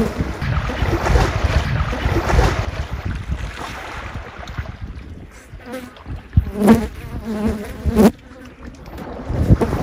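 African elephant wading and feeding in a shallow river channel: water sloshing and splashing around its legs and trunk, with wind on the microphone. In the second half a fly buzzes close to the microphone, and there is a sharp knock about eight seconds in.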